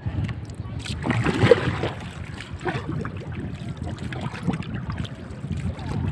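Small bangka boat under way: a steady low rumble of the boat running, with water rushing and splashing along the hull, louder for a moment about a second and a half in.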